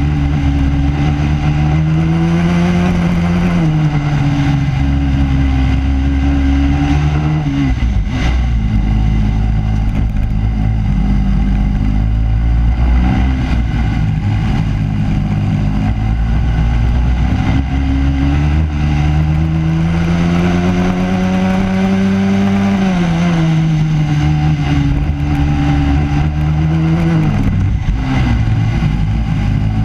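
Racing kart engine heard onboard at race pace, its pitch climbing as it accelerates out of corners and dropping sharply as the driver lifts and brakes, about eight seconds in and again near the end. Steady wind and tyre rush runs underneath.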